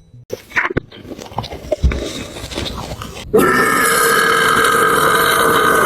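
Scattered clicks and short mouth noises, then about three seconds in a long, loud, drawn-out burp that begins suddenly and holds a steady pitch.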